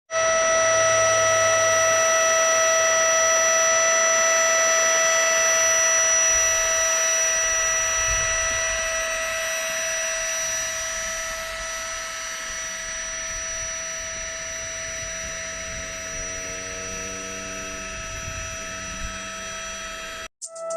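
A held ringing drone of several steady high tones over a hiss, slowly fading, with low sustained notes coming in near the end; it cuts off abruptly.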